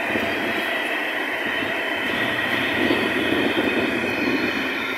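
A freight train's empty container flat wagons rolling past: steady wheel-on-rail noise that eases off slightly near the end.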